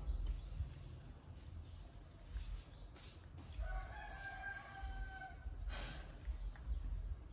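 A rooster crowing once, faint, one long held call about halfway through, over a low, uneven rumble on the microphone.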